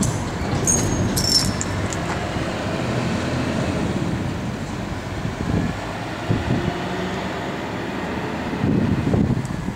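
Steady low rumble of a passing vehicle, with a few brief high squeals about a second in and a louder swell near the end.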